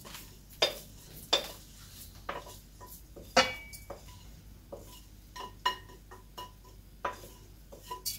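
Wooden spatula tapping and scraping against a glass mixing bowl as rice is scraped out of it into a pot: a string of irregular clinks, several with a short glassy ring, the loudest about three and a half seconds in.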